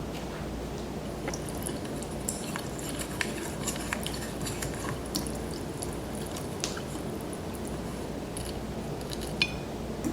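A person chewing a mouthful of 2x Spicy Buldak noodles close to the microphone: wet, squishy chewing with many small clicks and smacks scattered throughout.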